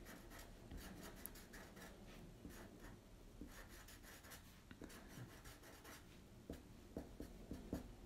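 Faint scratching of a Sharpie felt-tip marker on paper, a run of short quick strokes.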